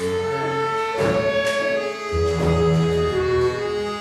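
Live chamber orchestra playing held notes, with low bass notes coming in about two seconds in.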